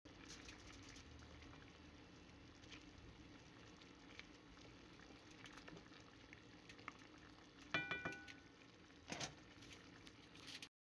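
Chicken paksiw simmering faintly in its sauce in a pot, with soft scattered ticks of bubbling as a wooden spatula stirs it. About three-quarters of the way through there is a short ringing clink, and a second later another knock.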